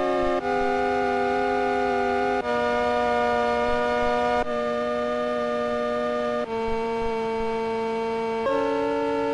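Background music of held chords without speech, the chord changing about every two seconds.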